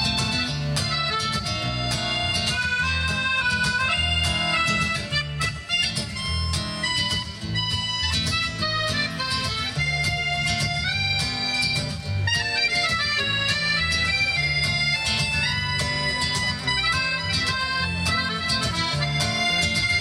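Accordion playing the instrumental interlude of a slow song, a held-note melody over steady bass notes.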